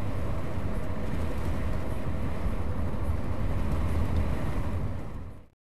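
Steady road noise inside a car cruising at about 45 mph: a low rumble of tyres and drivetrain with a hiss of wind above. It fades out quickly near the end to silence.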